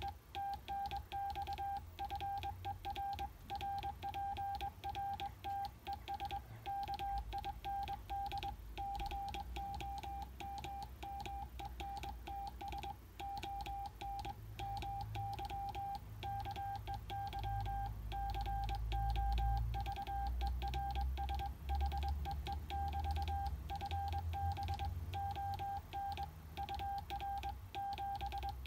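Morse code sent by hand on a Begali Spark straight key: the Icom IC-725's CW sidetone, a single steady beep, keyed on and off in dots and dashes, with the light clicking of the key's contacts under each element.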